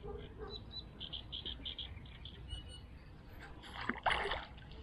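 Water splashing and sloshing against the side of a small boat as a hooked fish is played close in, loudest about three and a half seconds in. Before it, a short run of quick, high clicks.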